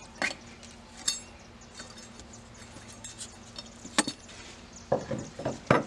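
A few sharp, separate metallic taps and clicks from a hand tool working a stray staple out of the house wrap at the bottom of the door frame.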